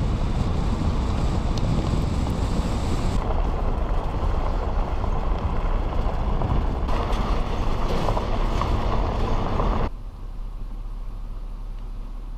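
Truck engine running under load with a loud rush of road and wind noise. About ten seconds in, the noise drops to a quieter steady hum.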